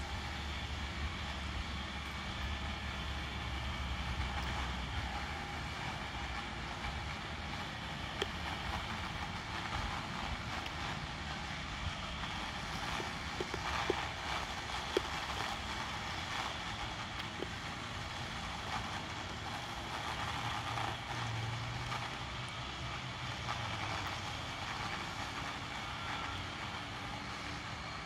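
Chainsaw running steadily, heard from far off, with a few sharp clicks about halfway through.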